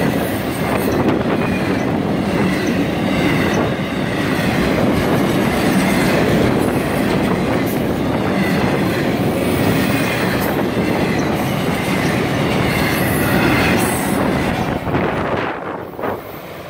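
Florida East Coast Railway freight train of truck trailers on flatcars passing close by, its steel wheels running loudly and steadily on the rails. The noise falls away near the end as the last cars go by.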